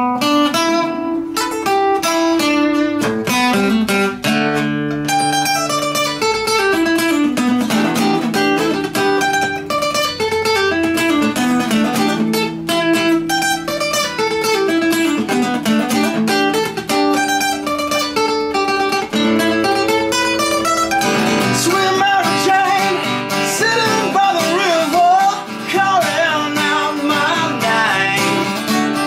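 Acoustic guitar played solo, a run of picked notes. A man's voice comes in singing about two-thirds of the way through.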